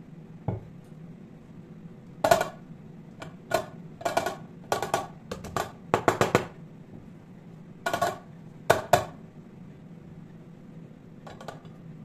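Dishes and kitchenware being handled: about a dozen sharp, ringing clinks and clatters in quick irregular succession, over a low steady hum.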